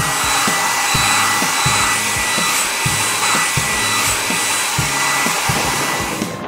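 Cartoon sound effect for the drying lamps: a steady whooshing hum with a high whine that rises at the start and then holds one pitch, cutting off near the end. A steady beat of background music runs underneath.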